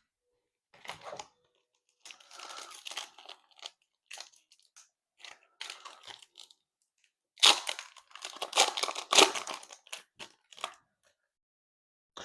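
Foil wrapper of a Topps Chrome trading-card pack being torn open and crinkled in the hands, in short rustling bursts, louder and denser in the second half.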